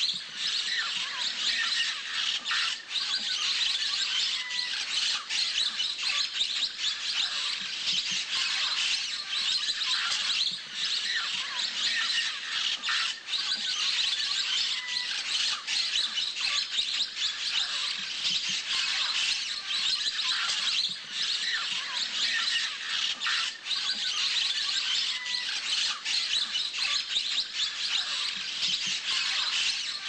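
A flock of orange-cheeked parrots calling: a dense, continuous chatter of many short, overlapping squawks and chirps.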